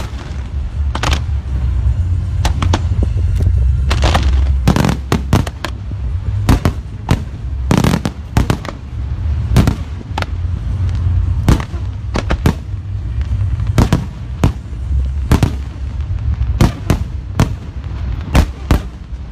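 Fireworks display at close range: a fast, irregular run of loud bangs and crackling reports, with several bangs a second at the busiest points, over a continuous low rumble.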